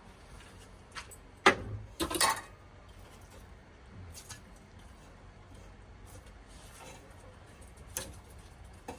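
A few sharp clinks and knocks of dishes and utensils being handled: the loudest about a second and a half in, a quick cluster of clatter just after, and one more near the end.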